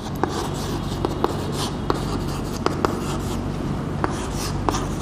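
Chalk writing on a chalkboard: scratchy strokes with several sharp ticks as the chalk strikes the board to form letters. A steady low hum runs underneath.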